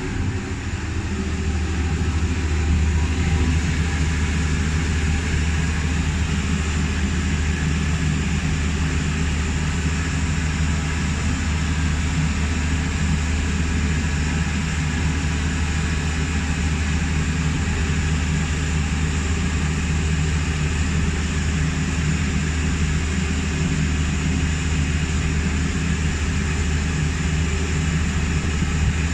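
Steady low machinery drone with a constant hiss over it, unchanging throughout.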